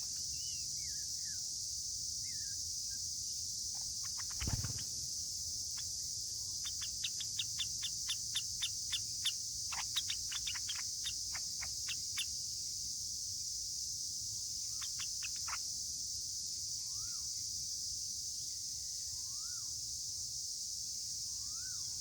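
Yellow-vented bulbuls calling: a fast run of sharp repeated notes in the middle, a few more a little later, and short up-and-down whistled notes near the end. A steady high insect drone runs underneath, with one low thump about four seconds in.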